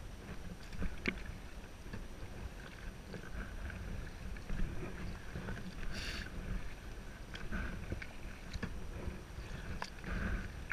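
Kayak paddling on a river: water splashing and dripping with scattered short knocks, and a louder splash about six seconds in, over a low rumble of wind on the microphone.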